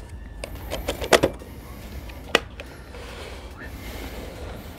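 Plastic bucket lid holding net pots being set onto a plastic bucket and pressed down, with a few sharp plastic clicks and knocks about a second in and again near the middle, then some plastic rubbing.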